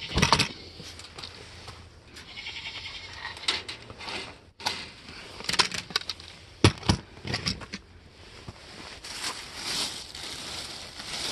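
Handling noise from swapping rabbit waterers: a series of sharp knocks and clatters of plastic water jugs and an iced-up container being moved, with rustling of a plastic bag in between.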